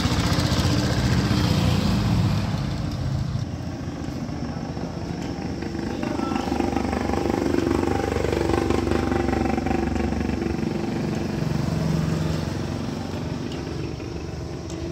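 A motor vehicle's engine running steadily, its pitch rising and falling for a few seconds in the middle.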